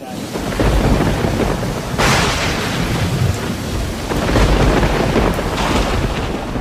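Storm at sea: heavy wind and rain with a deep, continuous rumble, starting abruptly and surging louder about two seconds in, again around four and a half seconds and near the end.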